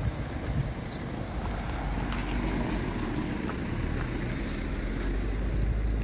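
Wind buffeting the microphone outdoors: a steady low rumble with a rushing noise over it.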